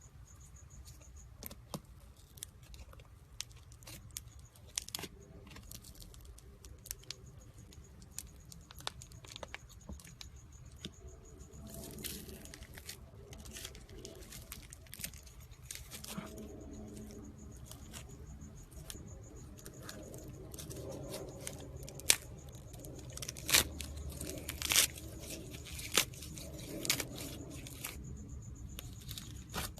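Irregular handling noises: scattered sharp clicks and tearing, crinkling sounds, growing louder and more frequent about two-thirds of the way in.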